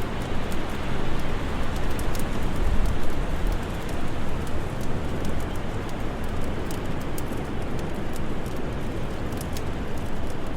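Steady howling of winter wind, heaviest in the low end and swelling gently, mixed with a wood fire crackling in scattered small pops.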